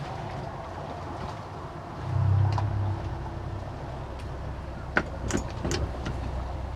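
Boat outboard engine running slowly at low throttle, a steady low hum that swells louder for about a second, about two seconds in. A few sharp clicks or knocks come near the end.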